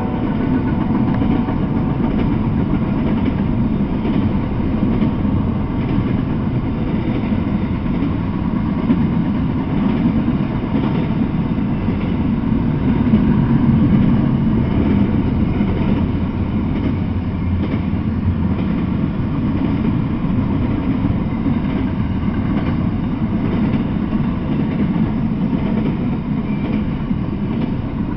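Double-stack intermodal freight train rolling past, its well cars making a steady, unbroken noise of wheels on rail.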